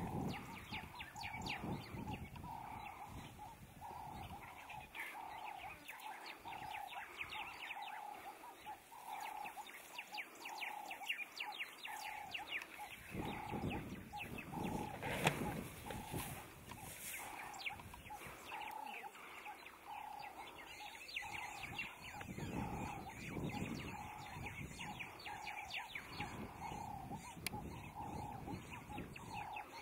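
A bird repeating one short note over and over, about twice a second, with fainter chirping above it. A low noise swells up around the middle and again about two-thirds of the way in, with one sharp knock about halfway.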